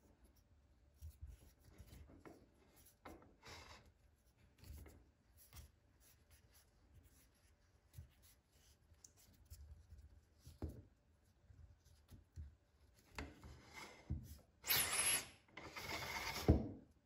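Wooden T-handle being spun by hand onto the threaded steel piston rod of a vintage hand air pump: quiet rubbing of wood, metal and hand, with small scattered clicks. Near the end come two louder rubbing rushes, each about a second long.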